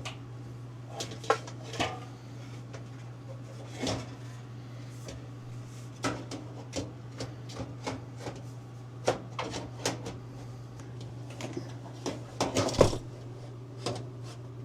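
Scattered clicks, clanks and knocks of metal dryer panels, parts and hand tools being handled during reassembly, with a quick cluster of louder knocks near the end. A steady low hum runs underneath.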